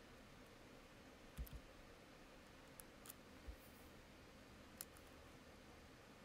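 Near silence: room tone with a few faint clicks and a couple of soft low thumps.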